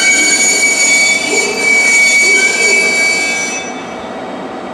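JR Kyushu 813 series electric train rolling slowly into the platform, its wheels and brakes giving a loud, steady, high-pitched squeal that stops about three and a half seconds in as the train comes to a halt.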